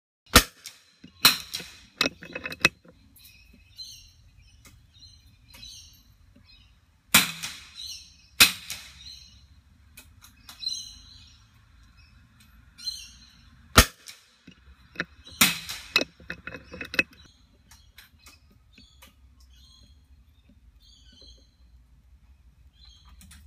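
.22LR rimfire benchrest rifle being fired and worked: a sharp crack near the start and another about 14 seconds in, with clusters of clicks and knocks from handling the rifle between them. Birds chirp faintly throughout.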